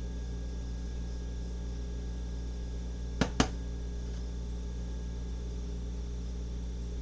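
Steady low hum with two quick sharp clicks close together about three seconds in.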